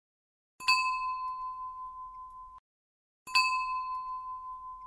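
Bell-like ding struck twice, about half a second in and again past three seconds. Each strike rings on one clear tone that fades and then cuts off abruptly about two seconds later.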